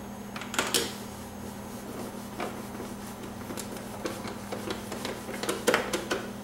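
Plastic lower front side panel of a BMW R1200GS being pushed into place by hand: scattered clicks and knocks of plastic on plastic as its clips seat, a quick cluster of them near the end, over a steady low hum.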